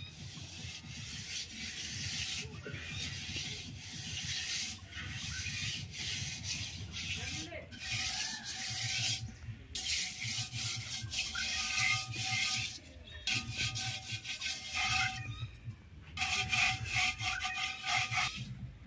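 Hands scrubbing aluminium pots smeared with a muddy scouring paste: a gritty rasping rub in repeated strokes, broken by a few short pauses.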